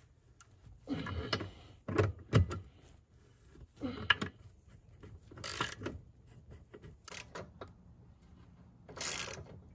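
Socket ratchet clicking and metal tools clinking in short, separate bursts as corroded jet pump bolts are worked loose.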